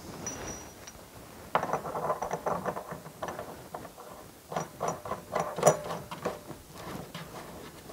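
A nut being spun by hand onto the threads of a spigot bulkhead fitting in the side of a plastic rain barrel: two bouts of rapid clicking and scraping, starting about a second and a half in and again about four and a half seconds in.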